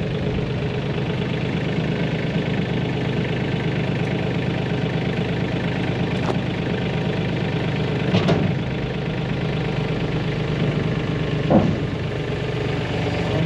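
Tractor engine idling steadily, with a few brief knocks or clanks partway through.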